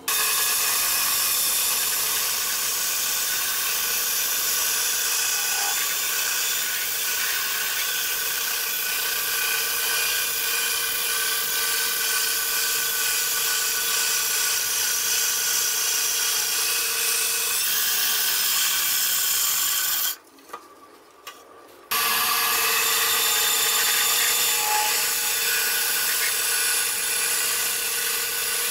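Benchtop band saw running and ripping through a bark-covered log: a steady hum under the rasp of the blade in the wood. The sound cuts out for about two seconds roughly two-thirds of the way through, then resumes.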